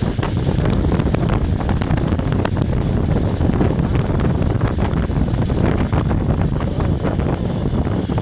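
Heavy, steady wind rush and buffeting on the microphone of a camera riding a zip wire at speed.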